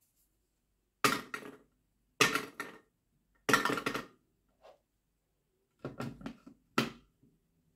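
Three ping-pong balls dropped one after another into a plastic blender jar, each bouncing with a quick run of light taps. Near the end the plastic lid is fitted onto the jar with a short clatter and a sharp click.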